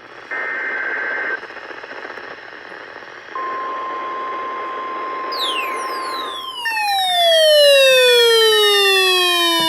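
Weather radio receiver hiss with a steady alert tone lasting about three seconds, typical of the NOAA Weather Radio warning alarm sounded for the required weekly test. It is followed by a loud whistle that glides steadily down in pitch with several overtones, joined by a steady higher tone.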